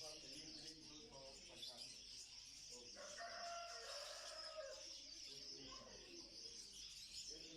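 Faint, continuous high twittering and chirping of many small caged birds at once, such as budgerigars, lovebirds and finches. About three seconds in, a lower, longer call rises over the chatter for roughly two seconds.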